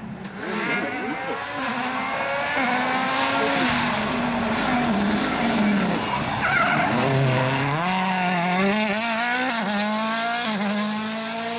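Toyota Yaris WRC rally car's turbocharged 1.6-litre four-cylinder engine at full effort on a special stage, its pitch climbing and stepping down through gear changes as it approaches. About seven seconds in the pitch drops low as it brakes and downshifts for a corner, then climbs again as it accelerates away. A brief hiss of noise comes around six seconds in.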